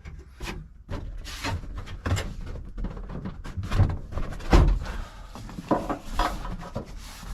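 Irregular knocks, taps and rustling as parts are handled and fitted inside a car's rear seat area, with one louder thump about four and a half seconds in.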